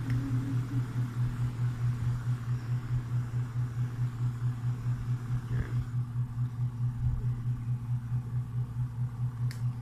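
Electric fan's motor humming low and steady, its level wavering rapidly and evenly several times a second. A few light clicks of plastic handling near the end.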